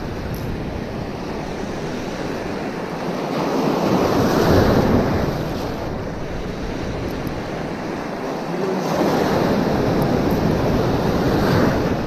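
Surf breaking and washing up the beach, swelling louder twice, with wind buffeting the microphone.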